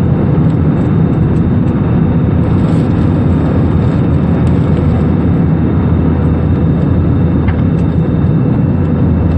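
Airliner engines running at take-off power: a loud, steady rumble.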